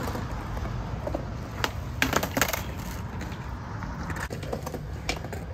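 Skateboards on concrete: wheels rolling with a low rumble, and several sharp clacks of boards hitting the ground, clustered about two seconds in.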